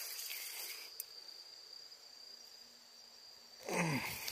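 Steady high-pitched chorus of insects, crickets by the sound of it, with a brief louder burst of noise with a falling pitch near the end.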